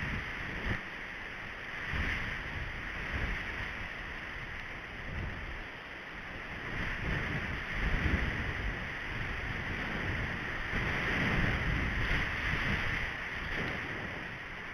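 Wind buffeting an outdoor camera microphone: low rumbling gusts that swell and fade every second or two over a steady hiss.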